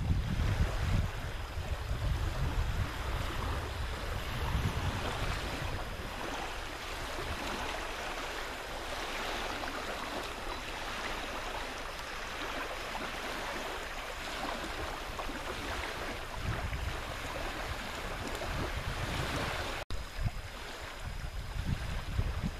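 Wind blowing over the microphone and small waves washing against the shore, a steady rushing noise. The low buffeting of the wind is strongest at the start and again after a brief cut near the end.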